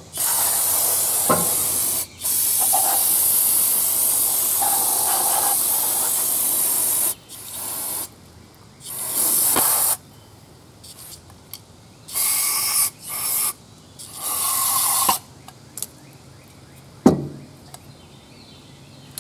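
Aerosol carburetor cleaner sprayed through a thin straw into a carburetor's passages, a quick clean in place of a rebuild. Two long hisses of about two and five seconds come first, then several short bursts, and one sharp click near the end.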